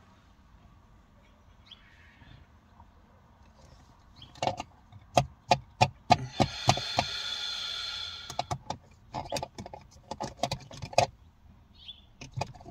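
Small objects being handled and rummaged through: a run of clicks and taps starting about four seconds in, with a steady hiss lasting about two seconds in the middle.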